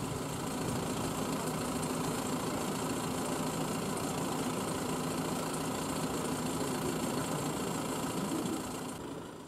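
A vehicle engine idling with a steady low hum, fading out near the end.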